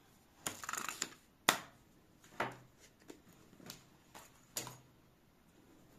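Packaging being handled: paper leaflets and a cardboard box with a foam insert, giving a soft rustle, a sharp click about a second and a half in, and several lighter taps and clicks.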